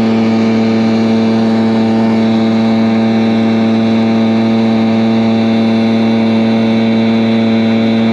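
Stihl gas backpack leaf blower running steadily with its throttle locked, an even engine note over air noise, loud enough to read about 103 dB on a sound meter roughly two feet away.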